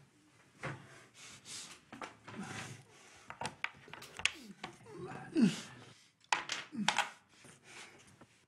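Wooden magnetic alphabet letters being sorted on a table and set onto a magnetic board: a string of small irregular clicks and clacks, with soft breaths and brief murmured voice sounds.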